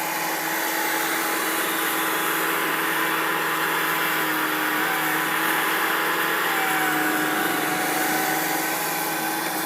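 Bobcat skid steer engine running steadily under work, with a whine over it; its note shifts slightly a couple of times midway.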